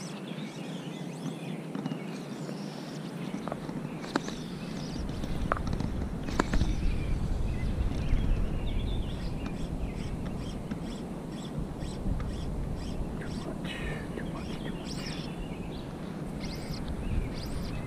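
Birds chirping and calling around a pond, with a quick run of repeated high ticks in the second half. Wind rumbles on the microphone from a few seconds in, and there are a few sharp clicks.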